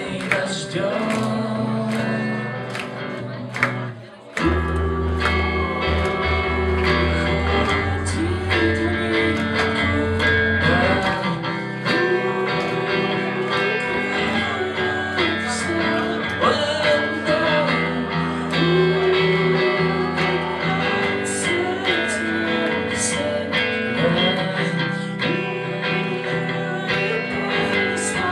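Live band playing: a singer over electric guitar, bass and drums. About four seconds in the music briefly drops, then the full band comes back in with heavy bass notes.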